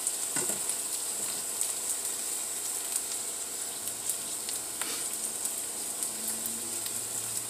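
Tofu bacon strips sizzling steadily as they fry in olive oil in a skillet, with a few faint pops.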